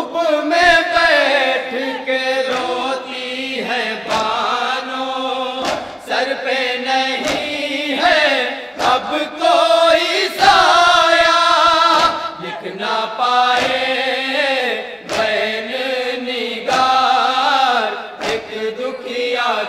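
Group of men chanting an Urdu noha (Shia lament) together without instruments. Sharp chest-beating strikes (matam) fall roughly once a second in time with the chant.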